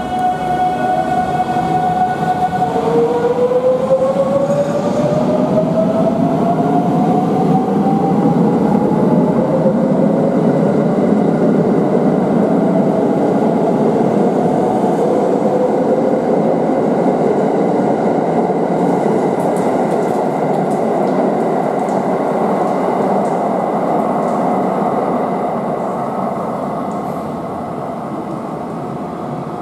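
JR 681 series electric train pulling away and accelerating along the platform. Its motor inverter whine holds one pitch for about two seconds, then rises steadily over the running noise of the wheels. The sound fades near the end.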